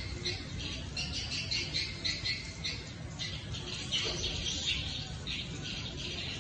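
Swiftlet lure call played through speakers: a rapid, repeating twitter of high chirps, several a second, over a steady low rumble.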